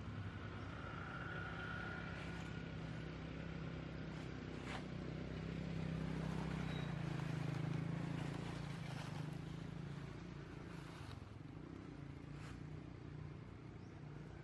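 A motor vehicle's engine running in the distance, a low steady hum that grows louder about halfway through and then fades, with a few faint clicks.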